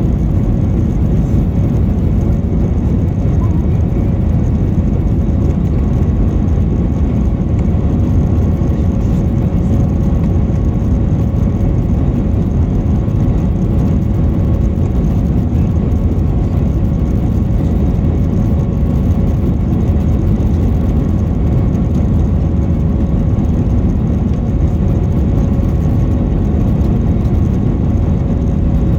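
Airbus A321 engine and airflow noise heard inside the passenger cabin: a steady, even rush with a constant hum running through it.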